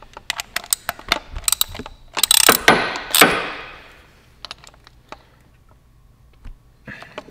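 Hand ratchet clicking in short runs while spark plugs are run into the cylinder head, with a louder burst of rapid rattling about two seconds in that fades out over the next second or so.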